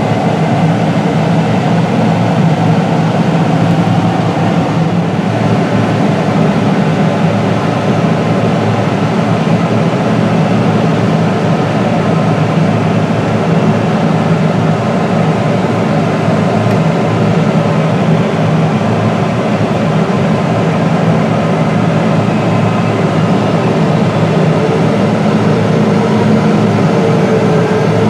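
Diesel engine of a large farm machine running steadily under load, a loud continuous drone.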